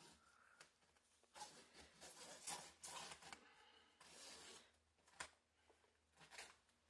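Faint scraping and rustling as a razor blade cuts along the edge of PhotoTex sticker material held under tension, in several short strokes with a sharp tick about five seconds in.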